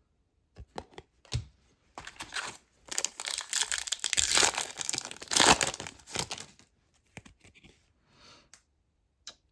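A trading card pack's wrapper being torn open and crinkled, a dense run of tearing and crackling from about two seconds in to six and a half seconds, with a few light clicks before and after.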